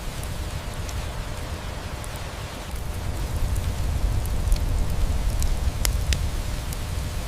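Steady rain with a low rumble beneath it, and a crackling wood fire giving scattered sharp pops, several close together in the second half.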